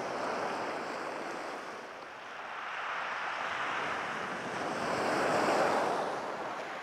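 Sea waves breaking and washing onto a shingle beach, a steady rushing that eases about two seconds in, then swells to its loudest near the end.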